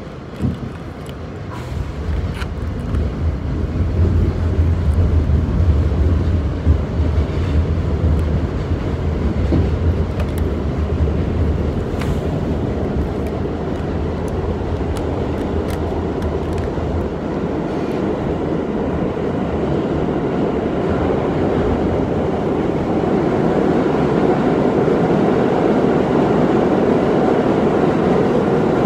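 New York City subway train running, heard from inside the car: a steady rumble and rush of the moving train that grows louder over the first few seconds, with a few sharp clicks.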